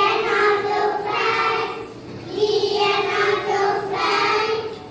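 A group of young children singing together in unison, holding two long notes one after the other.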